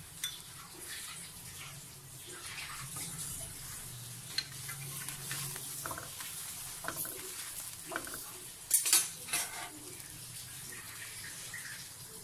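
Metal spatula scraping and tapping on a hot iron tawa as a stuffed radish paratha is pressed and turned, over a light sizzle of the paratha frying. A louder burst of scraping comes about three-quarters of the way through.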